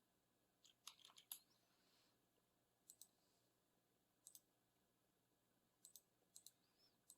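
Faint computer mouse clicks, mostly in quick pairs, every second or two.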